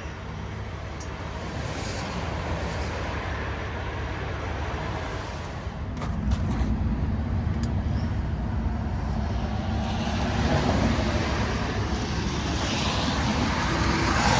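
Diesel semi truck engine running with a steady low rumble; a few sharp clicks come about six seconds in, and the engine grows louder after them.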